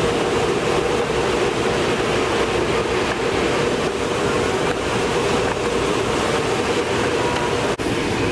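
Self-serve car wash vacuum running: a loud, steady rush of air with a steady hum under it.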